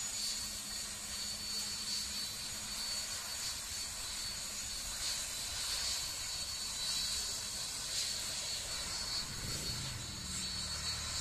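Embraer Legacy business jet's turbofan engines whining steadily at low thrust as it rolls along the runway after touchdown, a high-pitched whine over a hiss. A lower droning tone joins about nine seconds in.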